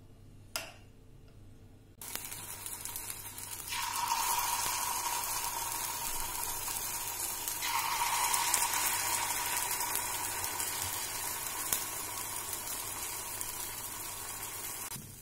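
A brief click, then sabudana (sago) batter sizzling in the hot ghee-greased cups of an appe (puddu) pan as it is poured in. The sizzle starts suddenly about two seconds in and grows louder a couple of seconds later.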